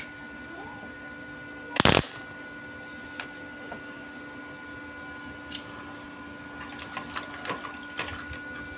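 Welder tack-welding stainless steel: one short, loud burst of arc crackle about two seconds in, then a run of brief crackles and ticks near the end, over a steady hum.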